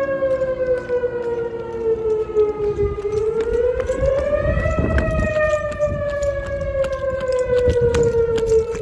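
Outdoor warning siren sounding a very loud, steady wail, heard close up. Its pitch sinks slowly, swells back up about three to five seconds in, then sinks again.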